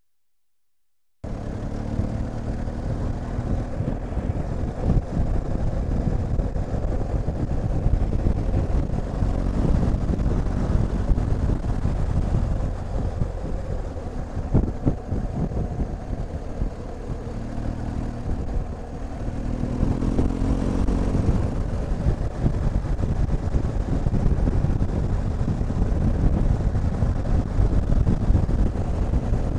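BMW R1250 GSA motorcycle's boxer-twin engine running while riding, under a steady low rumble of wind and road noise. The sound cuts in suddenly about a second in, and the engine note climbs briefly about twenty seconds in.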